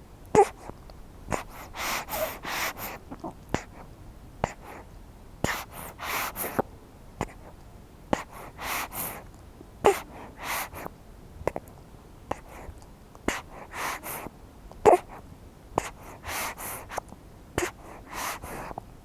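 A baby breastfeeding: irregular wet sucking and gulping with breathy snuffles through the nose, and a few brief squeaks.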